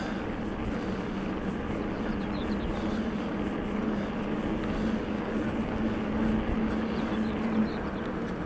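Steady riding noise of a Rockrider E-ST 900 electric mountain bike under way: a continuous rush of wind and tyres on the track, with a steady low hum through most of it.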